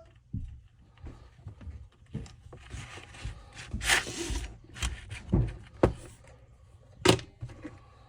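Workbench handling noises from the cut-off saw's recoil starter being worked on by hand: several sharp knocks and clicks, with a stretch of scraping and rubbing through the middle.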